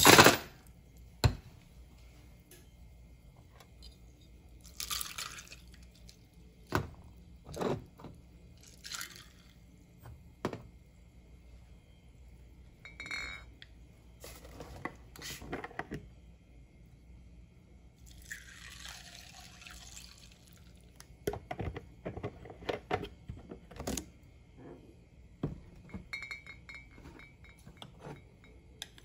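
Ice cubes clattering into a glass tumbler at the start, the loudest sound. Then clinks of steel jiggers against glass, short pours of vodka, and about two-thirds of the way through a longer pour of cranberry juice over the ice.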